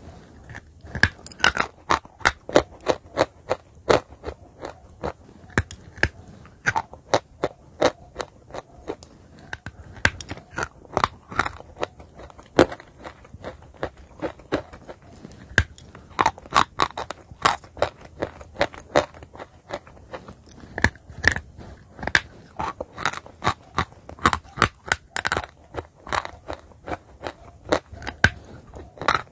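Chalk crunching as a person bites off pieces and chews them: sharp, irregular snaps and crackles, several a second, with a short lull partway through.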